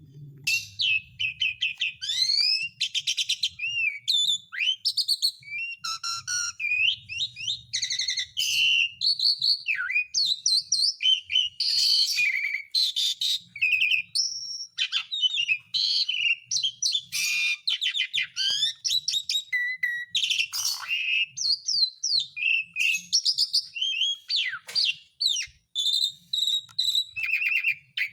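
Asian pied starling (jalak suren) singing continuously: a fast, varied run of clear whistles, rattling chatter and rising and falling notes with only short gaps, a calling song used to set other jalak suren singing.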